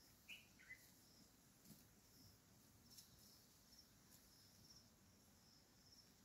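Near silence: faint forest ambience with soft high chirping repeating throughout, and two short falling calls close together near the start.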